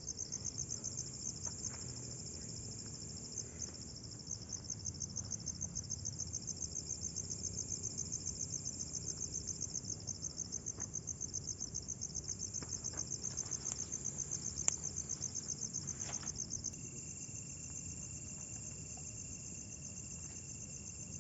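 Crickets chirping in a fast, even, high-pitched pulse. About three-quarters of the way in, the pulsing smooths into a steadier trill, with a faint steady tone beneath it.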